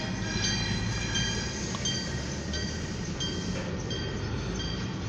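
Oil Creek & Titusville freight train heard from inside a car's cabin: a steady low rumble with high-pitched ringing tones that come and go.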